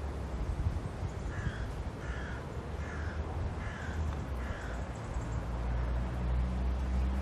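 A crow cawing five times in an even series, about one call every three-quarters of a second, over a steady low outdoor rumble.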